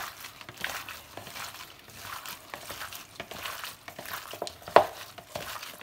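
Oiled raw diced chicken breast being mixed by a gloved hand in a plastic bowl. It gives irregular soft squishes and clicks, with one louder click about a second before the end.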